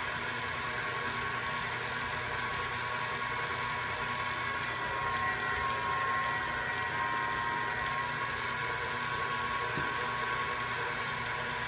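Electric pasta machine motor running steadily with a whirring hum as a sheet of dough is rolled through it.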